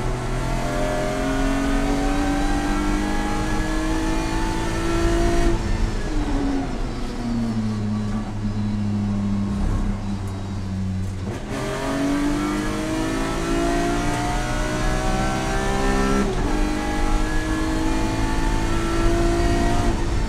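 Track car's engine heard from inside the cabin, pulling hard with the revs climbing. About five seconds in it comes off the throttle and the revs slide down for several seconds, then it accelerates hard again, with a quick upshift about 16 seconds in, and the revs climb high toward the end.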